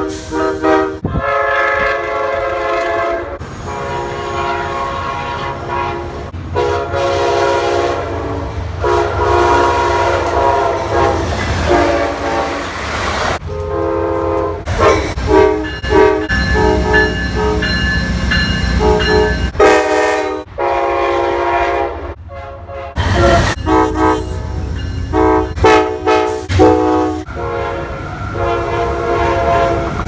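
A series of diesel locomotive air horn blasts, each a chord of several notes, some short and some long, over the low rumble and wheel clatter of passing trains. Most come from Amtrak GE P42DC Genesis passenger locomotives.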